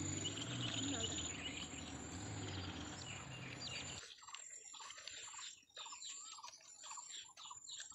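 Outdoor ambience with a steady hiss of insects. About four seconds in it cuts to small birds chirping, many quick calls in a row.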